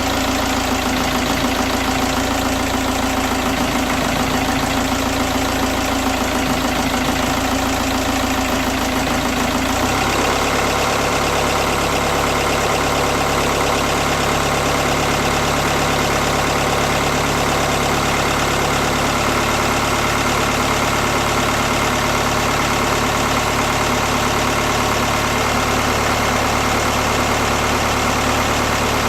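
VW Group 2.0 TDI (BKD engine code) pump-injector diesel idling roughly while cold. Its note changes about ten seconds in.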